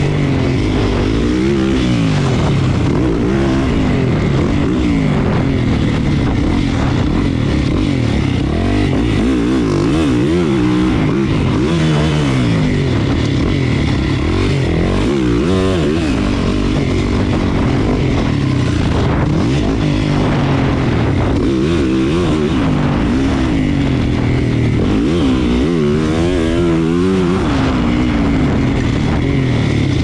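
A 450cc four-stroke motocross bike's engine, heard up close from the onboard camera, revving hard and backing off again and again as it is ridden around the track. The pitch climbs and drops every couple of seconds with each run and corner, over the hiss of wind and dirt.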